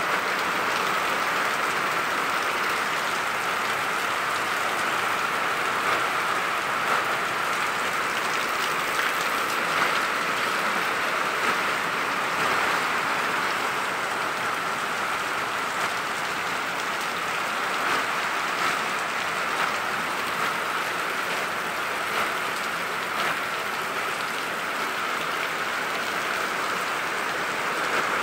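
Heavy rain falling steadily, with water pouring off a roof edge.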